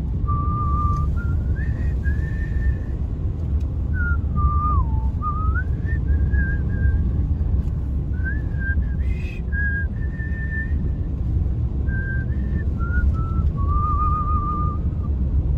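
A person whistling a slow tune of held notes and slides, over the steady low rumble of a car driving, heard from inside the cabin.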